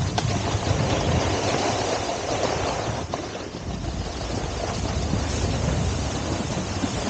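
Skis sliding and scraping through slushy spring snow on a downhill run, with wind rushing over the microphone.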